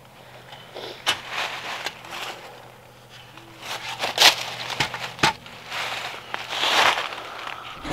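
Irregular crunching and rustling of dry leaf litter and twigs on a forest floor as someone moves about, with a few sharp clicks.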